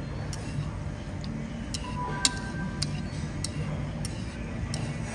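Background music with a light, evenly spaced tick about every half second, over a steady low hum of room noise.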